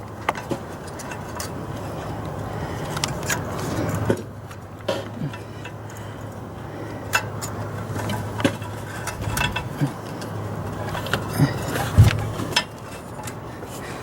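Scattered metal clicks and knocks of hand tools working on exhaust manifold bolts over a steady low hum, with one heavier knock about twelve seconds in.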